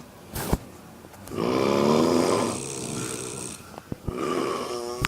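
Women snoring in their sleep. There is a sharp click about half a second in, a loud rattling snore starting about a second and a half in, and another snore near the end.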